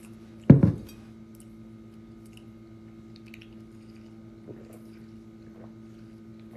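A brief, loud low thump about half a second in, then a man sipping a green drink through a plastic straw from a glass jar, with faint slurps and small clicks.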